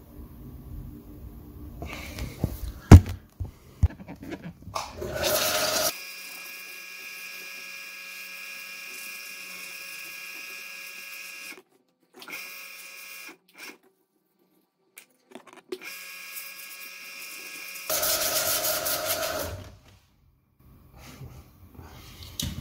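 Hot-air rework station blowing: a steady multi-pitched whine over a hiss, surging louder twice and cutting out briefly twice. Before it starts, handling clatter with one sharp click about three seconds in.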